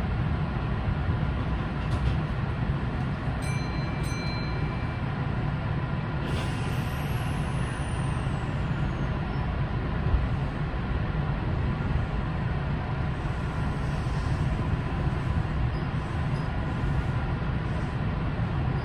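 Kintetsu 9020 series electric train heard from the driving cab: a steady low rumble while it stands at the platform, then it moves off and begins to gather speed near the end. A brief high tone sounds a few seconds in, and a faint high tone falls in pitch about six seconds in.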